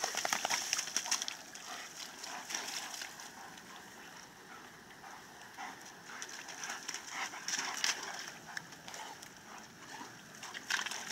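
Wet German Shepherds on a wet concrete and gravel shore: water sprays off as one dog shakes its coat at the start, then scattered taps of paws and claws on the wet ground as the dogs walk about.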